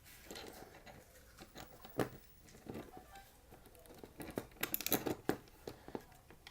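Light clicks and knocks of a skateboard truck, spacer and mounting bolts being handled and fitted onto the deck, with a sharper knock about two seconds in and a quick cluster of clicks around five seconds.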